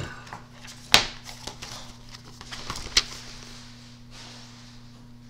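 A paperback book being handled and its pages moved, with light rustling and two sharp knocks about two seconds apart, over a steady low hum.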